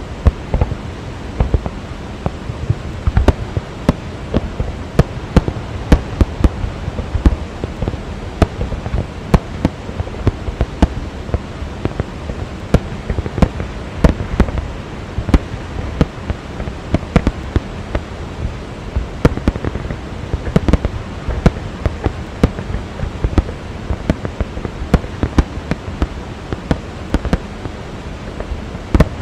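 Fireworks display: many sharp bangs and crackles in quick, irregular succession, several a second, over the steady rushing roar of the Rhine Falls waterfall.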